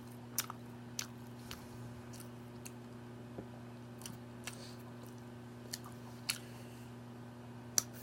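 Person chewing a White Castle burger with the mouth close to the microphone: soft, wet mouth clicks and smacks every second or so, the sharpest about half a second in, over a steady low hum.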